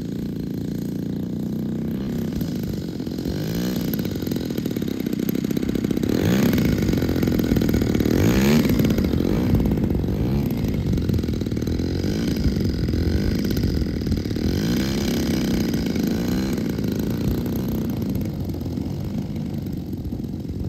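DLE 55 single-cylinder two-stroke gas engine and propeller of a Slick 540 model aerobatic plane running as it taxis on grass, the engine speed rising and falling. It is loudest about a third of the way in, as the plane comes close.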